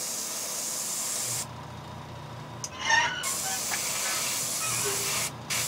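Airbrush spraying glossy black paint through a stencil onto a lure: a steady hiss that stops about one and a half seconds in, then starts again about three seconds in. A low hum fills the pause, and a short louder sound breaks in about three seconds in.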